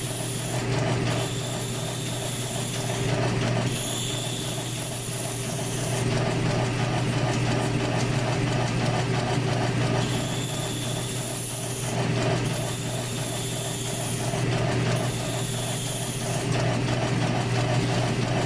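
South Bend lathe running with a steady hum while a hand file is stroked across the spinning scooter wheel. The file gives a hissing rasp in strokes of about two seconds each, with a pause of a few seconds midway.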